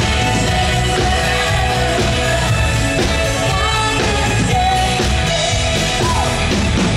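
Live band playing a new-wave synth-pop song, with a woman singing lead over drums, bass guitar and keyboards, loud and steady.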